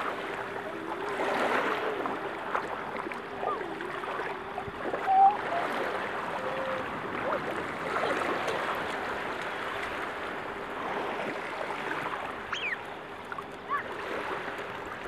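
Shallow ocean surf washing in over sand, a steady rushing wash with a faint steady hum underneath. A brief louder sound stands out about five seconds in.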